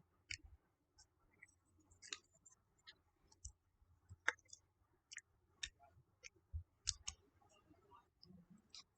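Faint, scattered wet clicks and small pops of clear glue slime being handled, about one or two a second.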